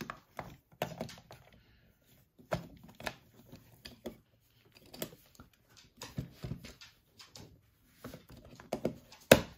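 Light plastic clicks and knocks from hands fitting the clear plastic dome lid onto an Addi Egg cord-knitting machine, with one sharp, louder click near the end.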